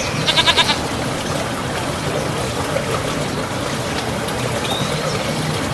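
A goat bleats once, a short quavering call, in the first second, over a steady background of running water.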